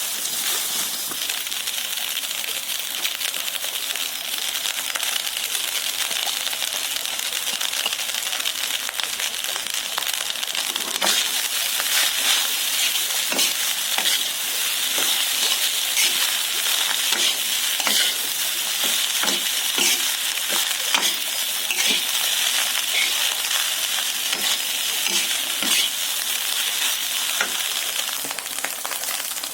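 Food sizzling in hot fat in a pan while being stirred, with frequent short clicks and scrapes of a spatula against the pan. The sizzle fades near the end.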